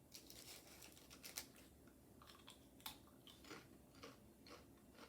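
Faint, irregular crunching clicks of a thin, crisp wasabi-potato wafer chip being bitten and chewed.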